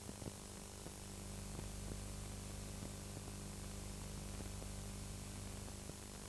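Faint steady hiss and low hum of recording background noise, with scattered light clicks.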